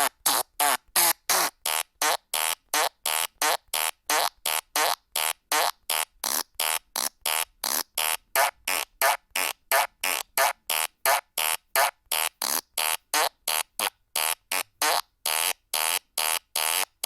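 Fart sound effects from a phone soundboard app, played one after another in quick succession: short bursts about three a second, each cut off cleanly by silence, some with a wavering pitch.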